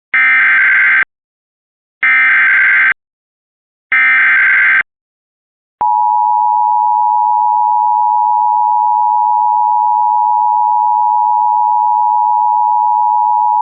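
Emergency Alert System severe thunderstorm alert tones. Three SAME header data bursts of about a second each, two seconds apart, are followed by a steady attention tone of about eight seconds that cuts off, signalling that a voice warning message follows.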